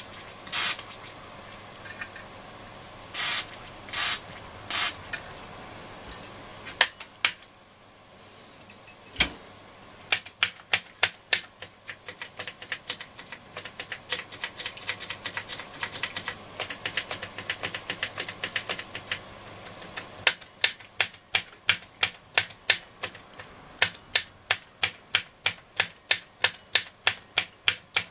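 A few short hisses of DeoxIT switch-cleaner aerosol in the first seconds. From about ten seconds in, the Hacker Super Sovereign RP75 radio's switches click in and out quickly, about three or four clicks a second, to work the cleaner into the contacts.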